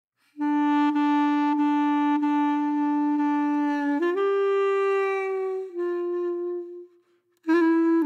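Background music: a solo wind instrument playing a slow melody of long held notes, the first lasting about three and a half seconds before the tune steps up and back down, with a short break near the end.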